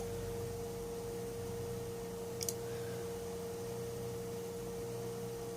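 Steady electrical hum at a single pitch, with a faint double click about two and a half seconds in.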